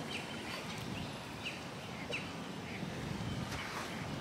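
Faint outdoor background with a few short, high bird chirps scattered through it.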